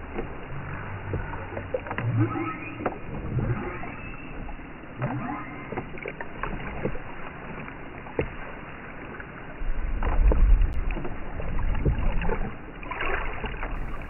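Humpback whale song recorded underwater: moans and higher cries that slide up and down in pitch over a water-noise bed, with a deep rumble about ten seconds in.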